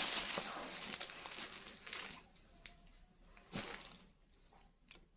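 Rustling and crinkling of gift packaging being handled for about two seconds, then a few soft handling knocks.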